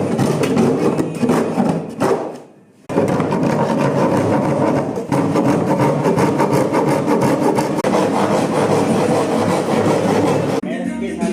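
Wood being worked with a cutting or abrading tool, a loud, continuous rasping with a brief break about two seconds in.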